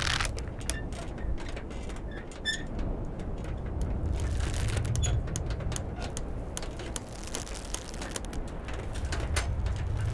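Wooden cable-tool drilling rig machinery working: a low rumble that swells and fades every few seconds, under many scattered clanks, knocks and creaks of wood and metal, with a short squeak about two seconds in.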